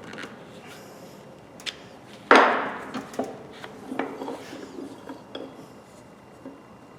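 Clicks and knocks of metal on metal as rust-seized pliers are worked in a vise, with one louder clank about two and a half seconds in.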